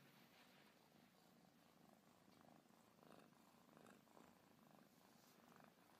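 A domestic cat purring faintly, in soft regular pulses.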